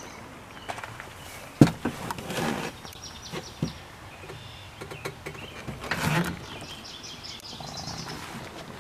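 A sharp knock about a second and a half in, then a couple of brief rustling scuffs as someone moves about in a utility vehicle's cab. Birds chirp faintly in the background, and no engine runs.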